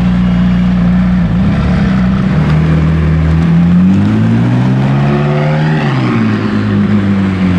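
McLaren 675LT Spider's twin-turbo V8 idling, then rising in pitch as the car drives away, and dropping back about six seconds in.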